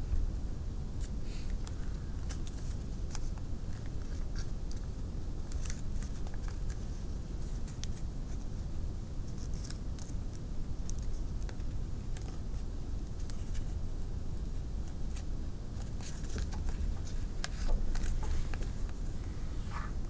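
Origami paper crinkling and creasing under the fingers as it is folded and pinched: scattered short crisp crackles, busiest near the end, over a steady low rumble.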